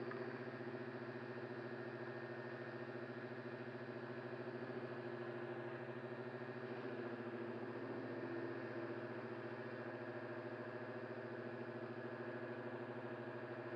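RC airship's motors and propellers running at a steady hum, heard through the onboard camera.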